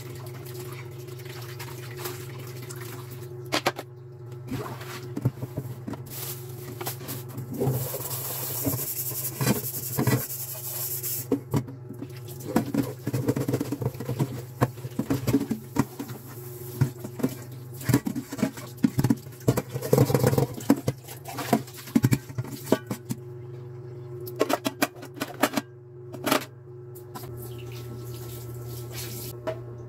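Dishwashing at a stainless steel kitchen sink: tap water running and splashing while a pot lid, a metal pot and a cloth are scrubbed and rinsed, with many clatters and knocks of metal dishware. A steady low hum sits underneath throughout.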